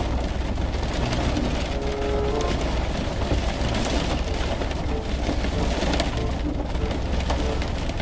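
Strong gusting wind with rain: a steady low rumble of wind on the microphone under the hiss of rain.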